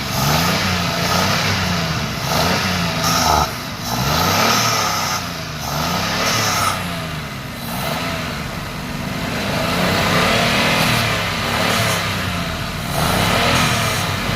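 Hyundai Eon's three-cylinder petrol engine running and being revved up and down over and over, every second or two, while its throttle body is cleaned.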